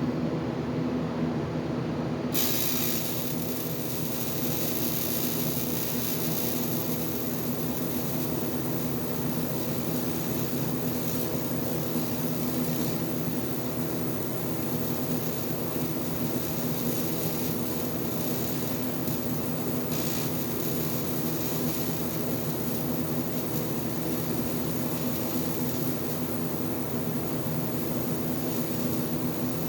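Steady buzzing hum of an AC TIG welding arc on aluminum, with a bright hiss that joins about two seconds in and holds.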